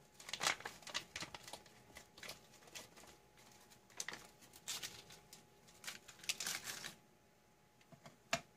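Crinkling and rustling of a foil ration pouch being handled in irregular short bursts, with a single sharp tap near the end.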